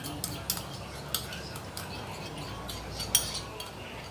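A metal spoon stirring and scraping in a cooking vessel, with irregular clinks against its side; the sharpest clink comes about three seconds in.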